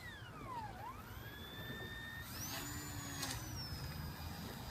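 Motor and propeller of a small RC Cessna 177 float plane whining as it taxis on water. The pitch dips sharply about half a second in, climbs back, then rises higher a couple of seconds in as the throttle opens. A low rumble runs underneath.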